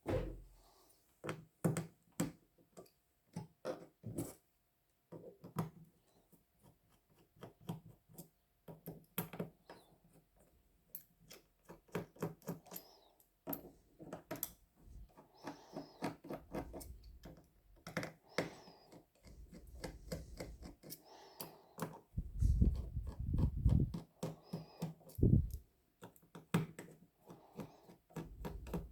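Small plastic clicks, taps and scrapes of hand tools prying and unclipping a Realme C11 smartphone's back cover and casing during disassembly. Some heavier low thuds of handling on the bench come between about 22 and 25 seconds in.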